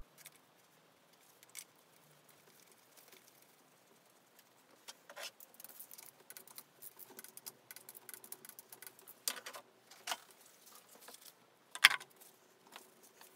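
Faint, irregular clicks and light metallic rattles of bolts and hand tools being handled while a cam cover is fitted and bolted down, with a few sharper clicks in the second half.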